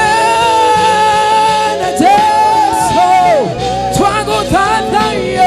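Worship song: voices singing long held notes with a slight waver over steady instrumental accompaniment.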